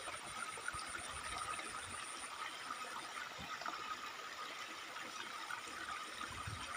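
Small muddy stream flowing steadily: a soft, even rush of water.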